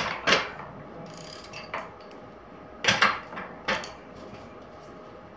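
Metal clinks and clanks as a screwdriver works steel parts loose from a CD009 manual transmission's gear stack and shift selector during teardown. A handful of sharp knocks, the loudest right at the start and about three seconds in.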